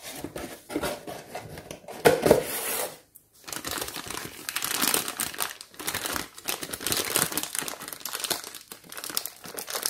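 Clear plastic packaging bag crinkling as it is handled and opened around small plastic toy bunk-bed parts. There is a louder burst of handling noise about two seconds in, a brief pause, then steady crinkling.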